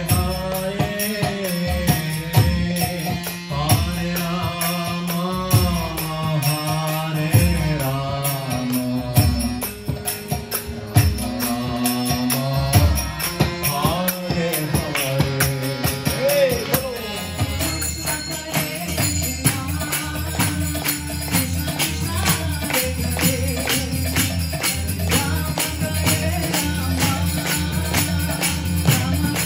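Live devotional kirtan: a woman sings a chant melody over harmonium chords, with a barrel drum and jingling hand cymbals keeping a steady beat. The sung line is strongest in the first half, then the harmonium drone and percussion carry on more evenly.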